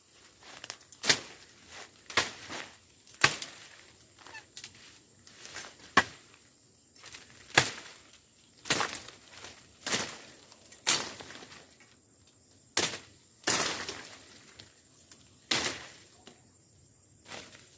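Repeated sharp swishing strikes into dry brush, roughly one a second and uneven in strength, with rustling between them; no engine is running.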